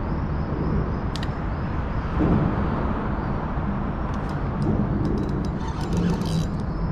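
Steady rumble of road traffic on the bridge deck overhead, heard from underneath among the pilings. A few short, light clicks come through, more of them in the second half.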